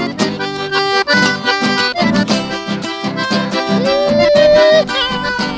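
Accordion playing a chamamé tune in a steady, lively rhythm, with guitar accompaniment. Near the end, a loud note slides up and is held for about a second.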